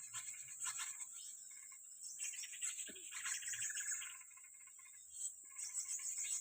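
Small birds chirping, with a fast trill strongest about two to four seconds in, over a steady high-pitched insect drone.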